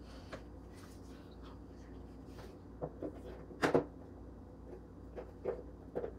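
Small plastic toys being picked up and set down on a cardboard box: a handful of light taps and knocks, the loudest a quick double knock a little past the middle.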